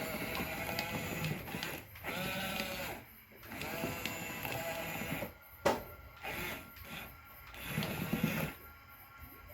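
Small electric motors of an RC excavator whining in short spurts, the pitch rising and falling as they speed up and slow down.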